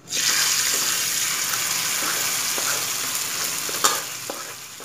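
Hot coconut-oil tempering of fried coconut, mustard seeds, curry leaves and crushed chilli poured onto a wet tuber curry in a clay pot. It sets off a loud sizzle that starts suddenly, carries a few crackles and fades away near the end.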